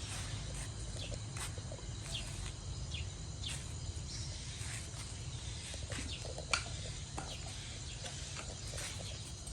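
Outdoor ambience: a steady low rumble with short, high, falling chirps scattered through it, and one sharp click about six and a half seconds in.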